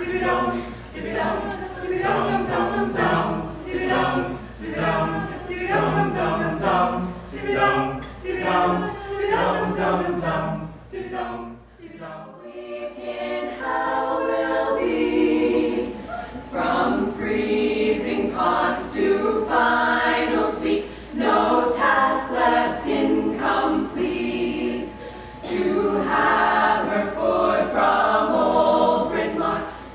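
A cappella group of mixed voices singing in close harmony with a pulsing rhythmic backing. About twelve seconds in it cuts to a women's a cappella group singing fuller, held chords.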